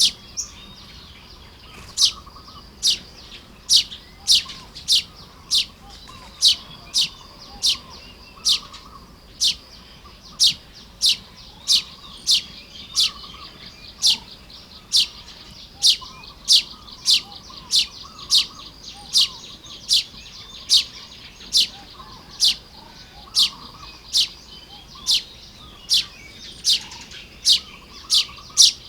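Baya weavers calling: one bird repeats a sharp, high chirp about every 0.7 seconds, starting about two seconds in, over softer chattering.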